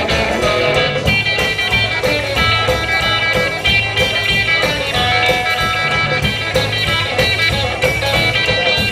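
Rockabilly band playing live: an instrumental break led by a Telecaster-style electric guitar over a steady beat, with no singing.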